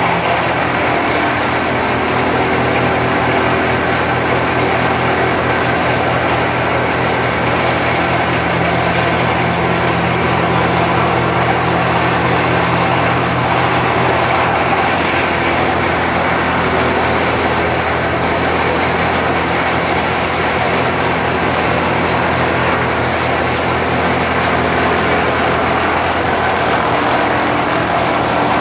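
Absorbent cotton lap forming machine running, its V-belt drives, pulleys and gears giving a loud, steady mechanical hum.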